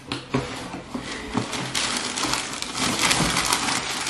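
Paper wrapping in a sneaker box crinkling and rustling as it is handled and pulled out, with a few small knocks.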